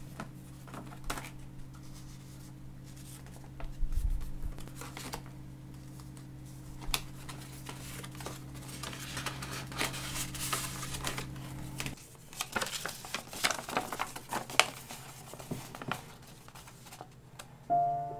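Paper handling: an envelope torn open and a folded letter pulled out and unfolded, crinkling and rustling in a run of short rustles, busiest in the middle. A low steady hum sits underneath and stops about two-thirds of the way through, and piano music comes in near the end.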